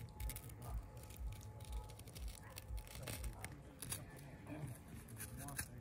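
Knife slicing through the skin of a butchered pig, with irregular soft squishing, tearing and clicking sounds, over a low pulse about twice a second.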